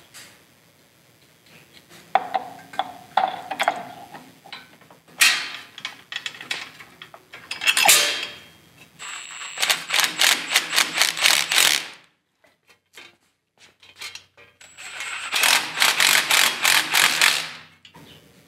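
Cordless impact wrench hammering in the unit bearing bolts on a Jeep JK front axle knuckle, in two bursts of about three seconds each. Before them, scattered clinks and knocks of metal parts being handled.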